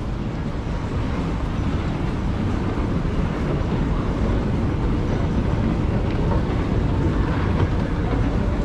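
1980s Hitachi escalator running: a steady mechanical rumble of the moving steps and drive, slightly louder in the second half as it is boarded and ridden down.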